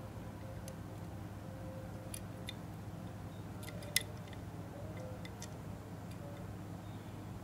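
Small clicks and taps of a die-cast metal and plastic Hot Wheels '55 Chevy Bel Air Gasser being turned over in the fingers, with one sharper click about four seconds in, over a steady low hum.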